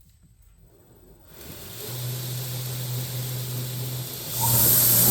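2x72 belt grinder motor starting up and running with a steady hum. About four seconds in it gets much louder and hissier.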